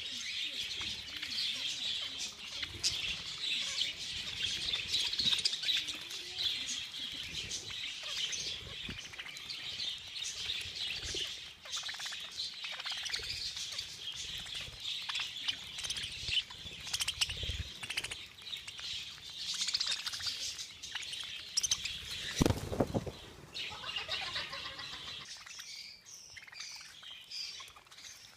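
A flock of budgerigars chirping and chattering together, with wings flapping. About three-quarters of the way through there is a brief low rush, and the chatter thins out near the end.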